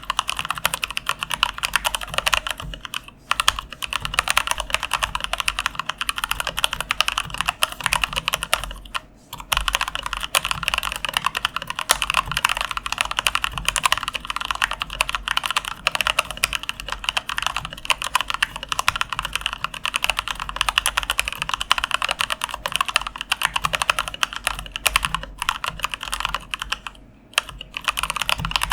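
Fast typing on a Keychron K8 mechanical keyboard with lubed Gateron Yellow linear switches: a rapid, dense run of key clicks with brief pauses about three seconds in, about nine seconds in and near the end.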